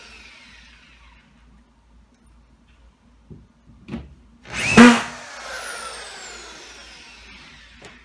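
Corded drywall screw gun driving a screw into drywall: a short loud burst about five seconds in as the motor spins up and the screw is driven home. The motor's whine then falls away as it coasts down after the trigger is released, with a few faint clicks before the burst.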